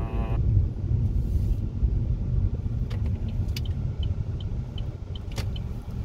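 Car cabin noise while driving: a steady low rumble of engine and tyres. From about halfway in there is a light, regular ticking of the turn signal, about two to three ticks a second.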